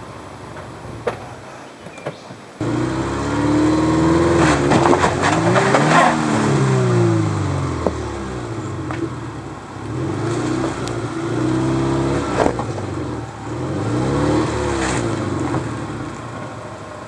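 1999 Subaru Forester's flat-four boxer engine revving hard in repeated surges, rising and falling in pitch as it labours up a rock climb in low range, with occasional knocks from the car working over rocks. The engine is quieter for the first couple of seconds, then jumps abruptly louder.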